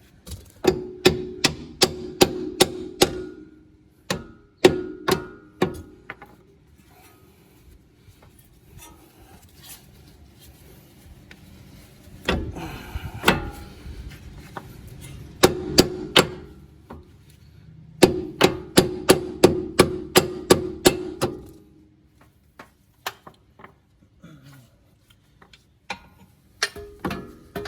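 Hammer blows on metal, tapping a front strut evenly down into the lower fork until it seats, in several runs of quick, ringing strikes with short pauses between them.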